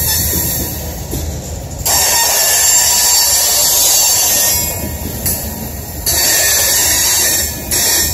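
Loaded coal cars rolling past, their steel wheels squealing and hissing against the rail over a steady low rumble. The screech swells strongly about two seconds in and again about six seconds in, fading between.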